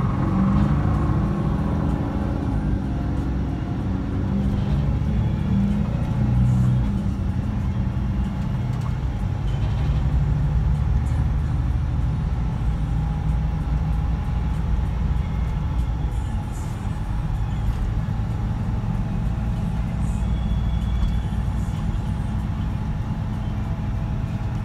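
Scania K124 coach's straight-six diesel engine running with the coach under way, heard inside the rear of the passenger cabin as a steady low drone.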